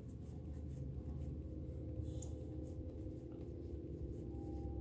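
A thick stack of trading cards being thumbed through by hand: faint, soft flicks and slides of card against card, repeating irregularly over a steady low background hum.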